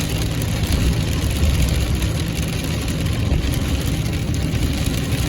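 Car driving on a rain-wet road, heard from inside the cabin: a steady low engine and road rumble with an even hiss over it.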